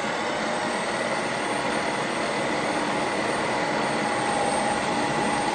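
Ninja Creami Deluxe running its re-spin cycle: the motor drives the blade back down through the pint of frozen ice cream as a steady, even whir. The re-spin is there to make a still slightly crumbly batch creamier.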